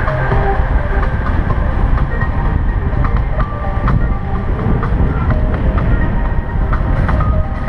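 Loud low wind and road rumble from riding a bicycle, with music playing over it in short held notes.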